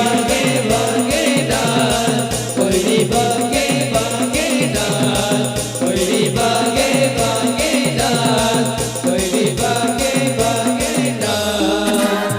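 Instrumental Timli folk dance music from an Adivasi band: a fast, even drumbeat under a wavering melody line. The drumbeat breaks off near the end.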